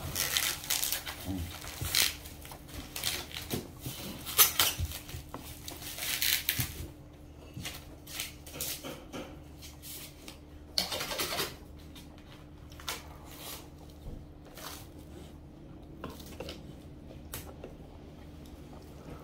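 Close-up eating sounds: chewing and mouth noises, with wooden chopsticks and a wooden spoon clicking and scraping against metal lunchbox containers. Busiest in the first several seconds and again briefly about 11 seconds in, sparser after that.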